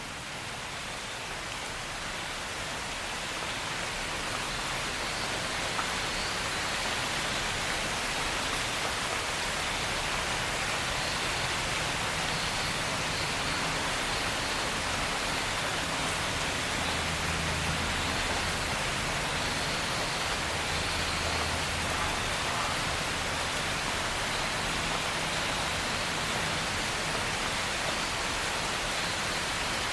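Steady rain falling, an even hiss, fading up over the first few seconds and then holding level.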